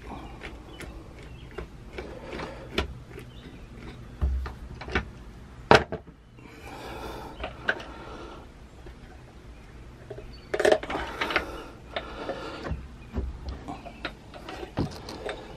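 Hand-tool work on a Sea-Doo oil filter with channel-lock pliers: irregular clicks and knocks of the pliers against the filter and the engine parts, with two stretches of scraping and rubbing. The loudest knock comes about six seconds in.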